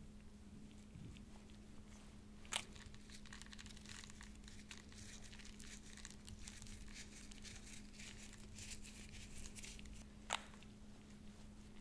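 Sesame seeds pattering onto a clay hamburger bun as they are sprinkled, a dense run of faint light ticks between two sharp clicks, one about two and a half seconds in and one near the end. A faint steady hum runs underneath.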